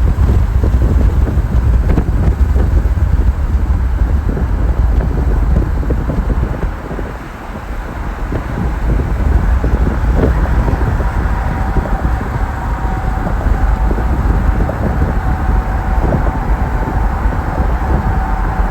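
Steady road and wind noise of a car travelling at highway speed, a heavy low rumble that eases briefly about seven seconds in. A faint steady whine joins it in the second half.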